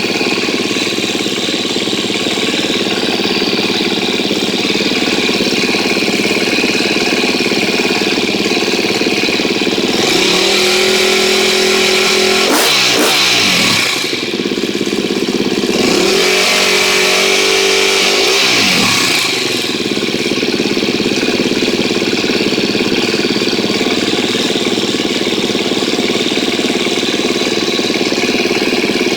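KTM 250 EXC-F single-cylinder four-stroke engine idling, revved twice (about ten and sixteen seconds in), each time rising and falling back to idle. It is running with a newly fitted Dirt Tricks cam chain tensioner, meant to cure a noisy cam chain, and sounds pretty good to the owner so far.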